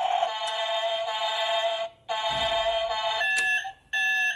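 Toy garbage truck's built-in electronic sound effects from its small speaker, set off by the cab-roof buttons: a tinny synthesized jingle that breaks off about two seconds in. About a second later a repeating electronic beeping starts, quick on-off beeps like an alarm.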